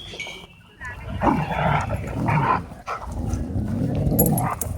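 Dogs wrestling and growling, loud and rough from about a second in, after a brief high whine at the very start.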